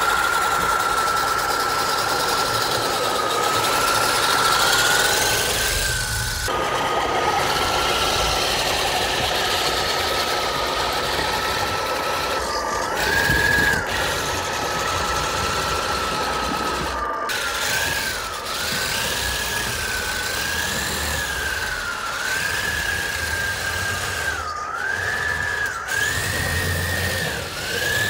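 Whine of an electric 6x6 RC truck's brushless motors and drivetrain driving rubber tracks. The whine stays steady at first, then repeatedly rises and dips in pitch with the throttle. It runs over a hissing scrape of the tracks and plow pushing wet snow across a wooden deck.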